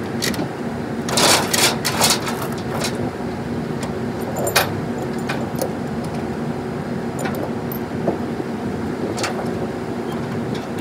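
Diesel pickup truck engine idling steadily, with scattered clicks and knocks over it; the loudest cluster comes about a second in.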